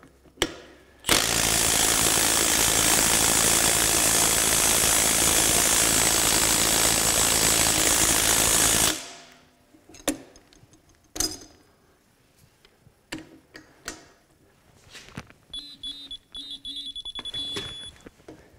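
Milwaukee M12 FUEL Stubby 3/8-inch cordless impact wrench hammering a bolt tight, one continuous rattling run of about eight seconds that stops abruptly. Handling clicks follow, and near the end a digital torque wrench beeps as the bolt is pulled loose.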